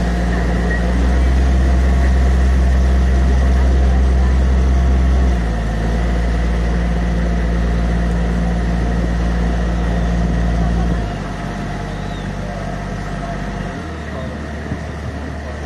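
Canal tour boat's motor running with a steady low hum. It grows louder about a second in, eases back around five seconds, and drops lower again around eleven seconds, following changes in throttle.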